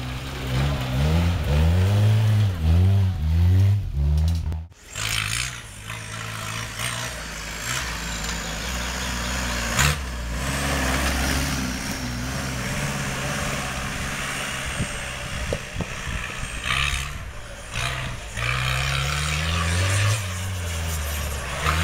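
Small engines of home-built racing tractors revving up and dropping back repeatedly as they drive. The sound breaks off abruptly about five seconds in, then runs steadier, and rises again near the end.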